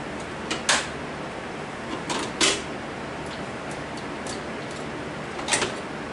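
Kitchenware handled on a counter: sharp clacks and knocks of a metal pot or bowl and its lid, in small clusters just under a second in, about two and a half seconds in, and near the end, over a steady background hiss.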